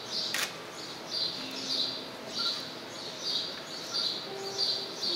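High-pitched chirping repeating steadily, about two chirps a second, with a single sharp click about half a second in and a few faint, low held notes underneath.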